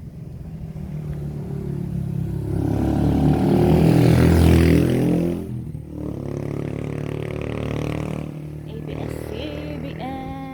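Motor vehicles passing close by on the road: one engine grows louder to a peak about halfway through and cuts away suddenly, then a second, quieter one passes.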